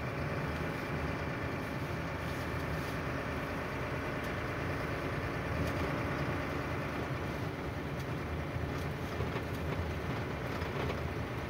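Steady engine drone and road noise inside a moving truck's cab as it rolls slowly over packed snow and ice.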